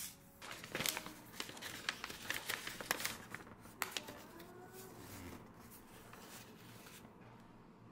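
Things being handled: a quick run of clicks, taps and crinkling that dies down after about four seconds, leaving faint room noise.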